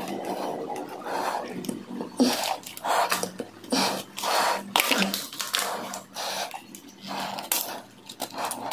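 Stranded copper wire and pliers being handled and worked at a breaker panel: irregular rustling, scraping and small clicks.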